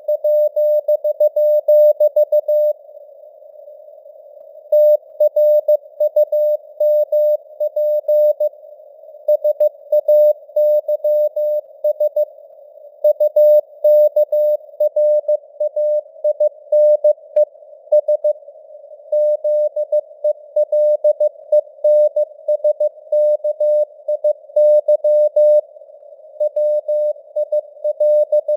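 Morse code (CW) sent at 15 words per minute: a single steady tone keyed on and off in dots and dashes, with pauses of about a second between words. Behind it is simulated radio receiver hiss, and the signal strength rises and falls in simulated fading (QSB).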